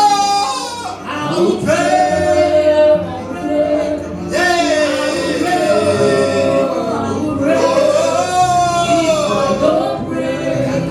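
Worship music: a voice sings long, wavering held notes over a steady, sustained low accompaniment.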